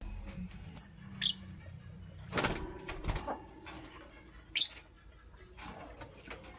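Pet lovebirds giving three short, sharp, high-pitched chirps, the first the loudest, with a burst of rustling or wing flapping in between.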